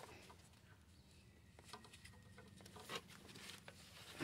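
Near silence with faint rustling and a few light clicks as gloved hands feed a serpentine belt around the engine pulleys; the clearest click comes about three seconds in.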